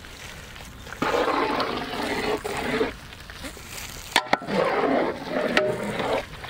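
Large ladle stirring a big pot of thick fish curry gravy, sloshing the liquid in two stretches of about two seconds each.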